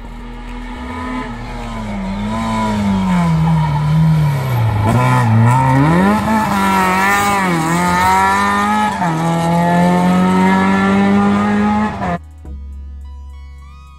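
Fiat 500-based hillclimb racing car's engine running hard. Its pitch drops as it brakes and shifts down into a hairpin, then rises again in steps as it accelerates out through the gears. The sound cuts off suddenly about twelve seconds in.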